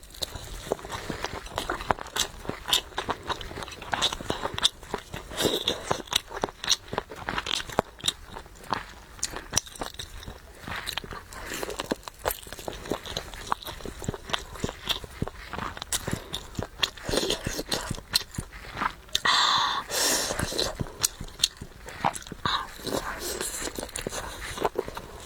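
Close-miked eating: biting and crunching into crisp food, with dense, irregular chewing clicks. A brief louder rustling hiss comes about three-quarters of the way through.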